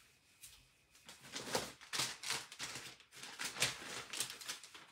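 Paper being handled and rustled on a tabletop: a string of short, dry rustles and scrapes, a few each second.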